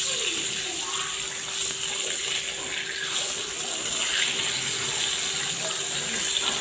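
Hot oil sizzling steadily in a pan where a fish head has been frying. A faint steady hum runs underneath.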